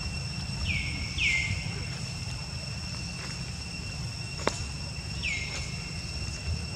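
Outdoor forest ambience: a steady high insect drone over a low rumble, with three short falling chirps, two about a second in and one past the middle, and a single sharp click between them.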